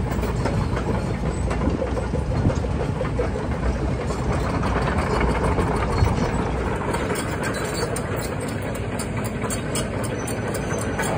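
Tracked excavators with their diesel engines running steadily as they drive past one after another.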